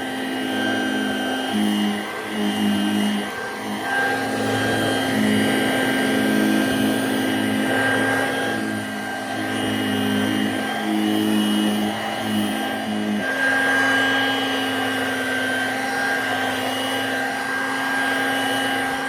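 Dirt Devil two-speed handheld vacuum cleaner running continuously with a steady motor whine while vacuuming a fabric desk chair. Its lower tone wavers and pulses as it works, then holds steady from about two-thirds of the way through.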